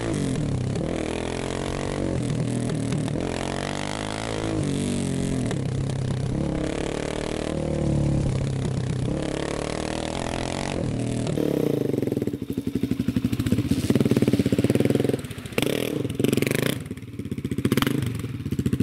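Dirt bike engine running under way, its note rising and falling as the rider opens and closes the throttle. About eleven seconds in the sound changes to a louder, lower pulsing engine sound with a few knocks.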